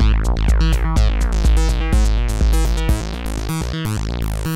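Sound Object #5 analogue synthesizer playing a fast sequenced bassline, its filter swept by hand so the tone keeps opening and closing. The low bass drops out briefly near the end.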